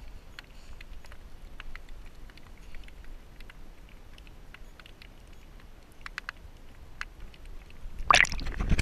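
Scattered light clicks and taps over a low steady rumble, then a louder rush of noise near the end.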